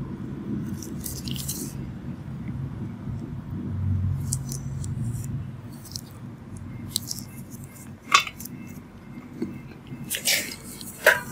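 Low muffled rumble with a few sharp metallic clinks, once about eight seconds in and twice near the end.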